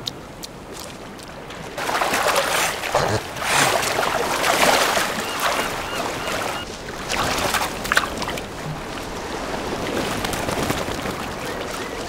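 An otter swimming through shallow water, splashing and sloshing, loudest a few seconds in and then in smaller irregular splashes. Before that come a few soft clicks of the otter chewing.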